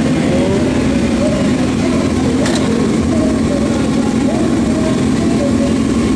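Motorcycle engines running steadily, with the chatter of a crowd underneath.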